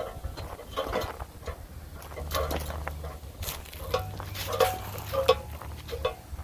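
Footsteps crunching on gravel and dry leaves at a walking pace, about two steps a second, over a low rumble.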